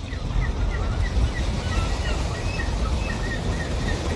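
Birds chirping in short, quick calls, about three a second, over a steady low rush of wind.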